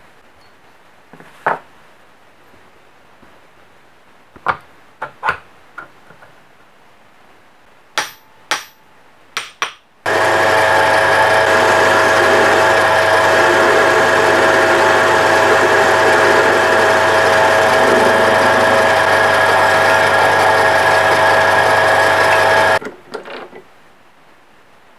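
A few sharp clicks and knocks, then a metal lathe starts about ten seconds in and runs at a steady speed with a constant whine for about thirteen seconds before switching off and spinning down.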